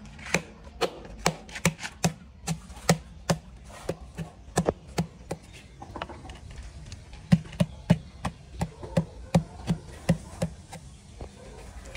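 Sharp knocks on a large ceramic tile as it is tapped and bedded against its mortar base, about two to three a second, with a short lull about halfway through.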